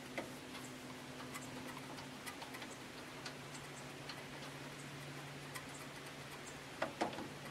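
Light metallic clicks and taps as a Bosch starter motor is handled and shifted into place against the engine's mounting plate, with two sharper clicks near the end. A steady low hum runs underneath.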